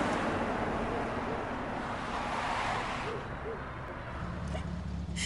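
A car driving past: a broad rush of engine and tyre noise that falls away about three seconds in. From about four seconds a steady low engine rumble takes over.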